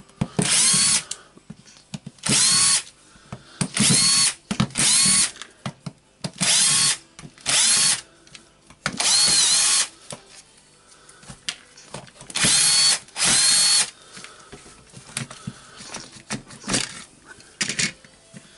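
Cordless drill-driver with a screwdriver bit running in about nine short bursts, each about half a second to a second long, its motor whine dipping and recovering within each burst, as it backs out the screws of a drill's clamshell housing.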